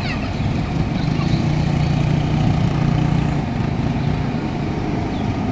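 Vehicle engines running close by over continuous traffic noise, with one steady engine hum swelling for about two seconds partway through and then fading.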